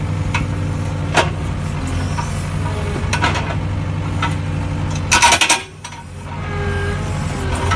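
Hydraulic breaker on an excavator hammering on broken concrete and rock, over the steady drone of the machine's engine. A few sharp metallic clanks come through, loudest in a cluster about five seconds in, after which the sound briefly drops away before resuming.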